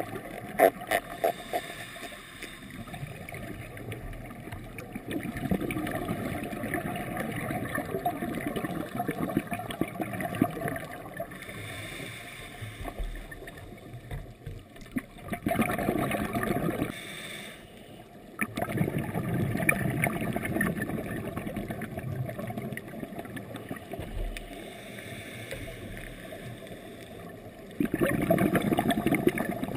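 Scuba exhaust bubbles gurgling and rumbling past an underwater camera. They come in surges a few seconds long, with brief quieter gaps between breaths.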